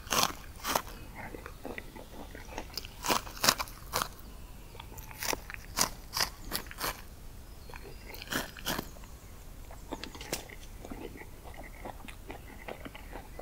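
A person biting into and chewing the raw kernels of a freshly picked ear of maize: a run of crisp, irregular crunches.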